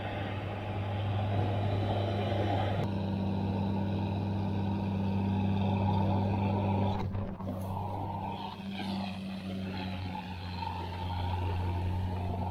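A boat's motor running with a steady, unchanging drone, briefly dipping about seven seconds in.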